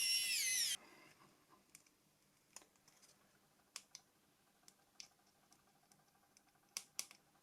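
A brief high whir falling in pitch, ending about a second in, then scattered light clicks and taps of a small screwdriver and screws on the plastic phone shell during reassembly.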